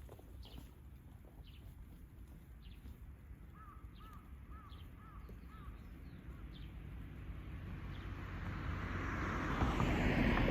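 Wild birds calling: short high falling chirps repeat every half second or so, and a run of about six arched calls comes in the middle. A rushing noise swells over the last few seconds.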